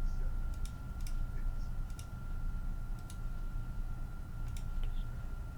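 Scattered sharp clicks at a computer, about one a second and irregular, over a steady faint high whine and a low hum.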